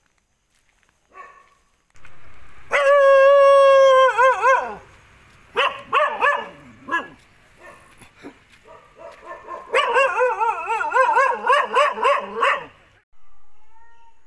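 A dog whining and howling in high, wavering cries. One long cry is held about two seconds, a few short ones follow, then a longer run whose pitch wobbles up and down.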